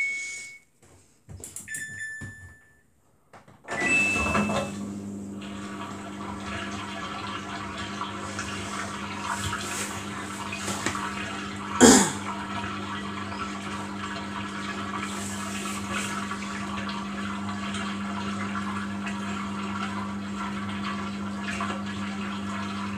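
Samsung front-loading washing machine in service mode: a few control-panel beeps, then from about four seconds in a steady hum with rushing water as the machine runs a pump or water valve. A sharp click about twelve seconds in.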